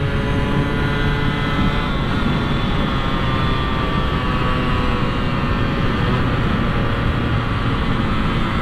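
Motorcycle engine held at high revs at highway speed, a steady drone with a slowly drifting pitch, over heavy wind rush on the microphone.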